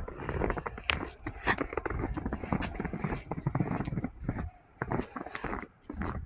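Boots crunching through soft, powdery snow in a run of irregular footsteps, with a low wind rumble on the microphone; the steps break off briefly near the end.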